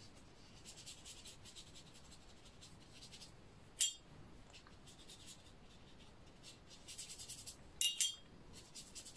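Watercolour brush rubbing on watercolour paper in faint, repeated short strokes, with two sharp clinks, one about four seconds in and one near the end.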